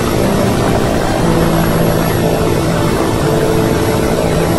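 Helicopter rotor and engine noise heard from on board, loud and steady.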